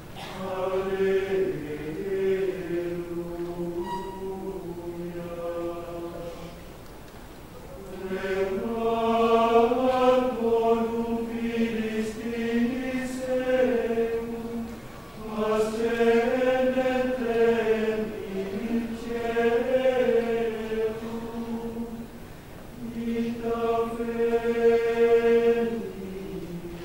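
Men's choir singing Gregorian chant in unison, one melody line rising and falling stepwise in long phrases with short breaks between them.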